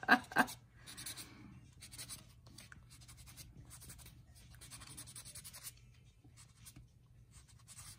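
Nail-buffing block rubbed in quick repeated strokes over a bare fingernail, a dry scratchy rasp, smoothing the nail after its shellac has been soaked off. The strokes stop about six seconds in.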